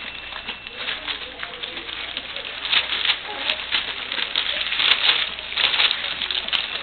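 A litter of English Springer Spaniel puppies eating together: a busy, irregular patter of small smacking and clicking eating noises, a little louder in spells about three and five seconds in.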